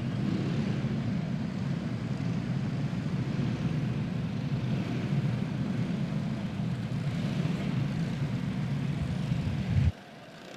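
Several racing karts with single-cylinder Predator engines running together in a steady, continuous drone. The sound drops away suddenly near the end.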